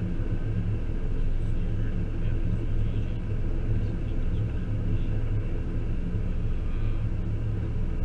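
Steady engine hum and road rumble inside the cabin of an SUV driving along.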